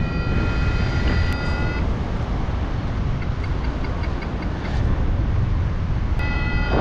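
Wind rushing over the microphone of a paraglider in flight, a steady low rumble throughout. A steady electronic tone from the flight variometer sounds for the first two seconds or so and comes back near the end, with a faint run of quick beeps in between; the steady tone is the variometer signalling sink.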